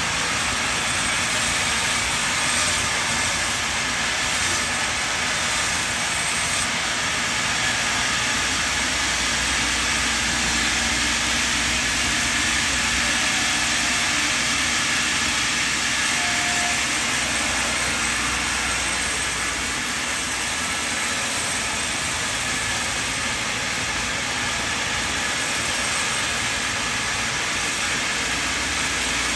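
Large vertical band saw running steadily, its blade ripping lengthwise through a big hardwood log.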